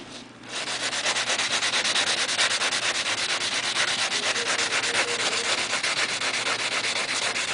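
Sandpaper in a hand-held sanding block rubbed back and forth over a plastic BMW kidney grille in rapid, even strokes, starting about half a second in. The old finish is being scuffed down before the grille is painted black.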